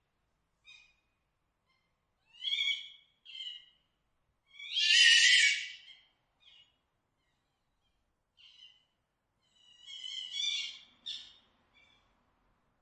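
Fox calling: a series of short, high, pitched calls with gaps of silence between them, and one louder, longer, harsher scream about five seconds in.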